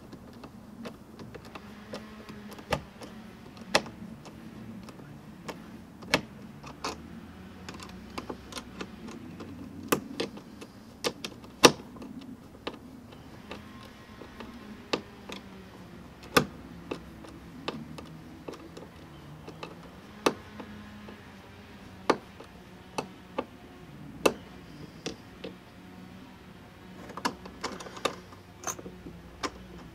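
Hand screwdriver driving screws through a plastic mounting bracket into a kayak hull, a wrench holding the nuts beneath: sharp, irregular clicks and ticks from the tool and hardware, about one every second or two, over a faint low hum.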